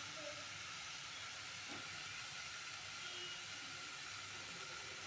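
Steady faint hiss with a low hum underneath: room noise, with no stirring or clatter.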